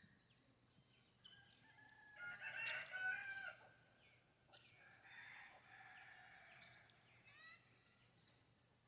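Rooster crowing, loudest from about two to three and a half seconds in, followed by a fainter, longer crow; a few short bird chirps near the end.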